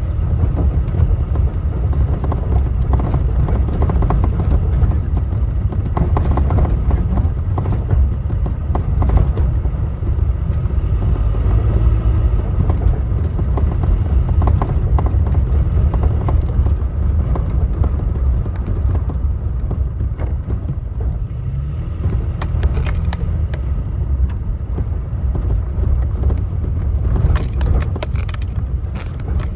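Toyota Tacoma driving over a rough road, heard from inside the cab: a steady low road and engine rumble with irregular knocks and clunks, the clunking that seems to come from under the steering wheel, cause unknown.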